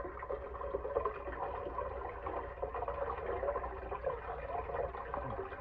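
Thick blended beet and carrot juice pouring in a steady stream from a bowl through a mesh strainer into a stainless steel pot of juice, splashing into the liquid below.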